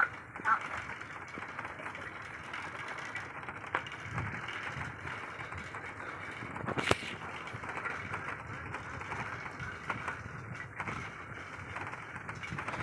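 Bicycle ridden over a rough, muddy dirt track: a steady rolling noise from the tyres and the bike, with one sharp knock about seven seconds in. A duck quacks once near the start.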